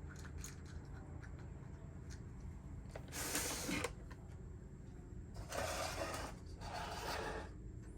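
Three short rasping strokes of something rubbing or scraping on plastic, the first about three seconds in and two close together near the end, likely sanding the broken grille plastic by hand before it is welded, over a steady low hum.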